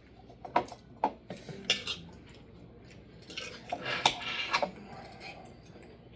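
Cutlery clinking and scraping against a plate during eating: a few separate clinks early on, then a closer cluster of clinks about halfway through.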